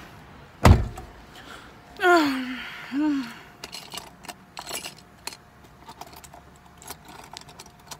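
A heavy thump, then a cat meowing twice, a long falling meow and a shorter one, followed by scattered light clicks and rattles.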